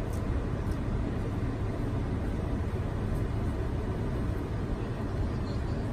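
Steady low rumble with hiss, the even background noise of a running machine, with a few faint ticks.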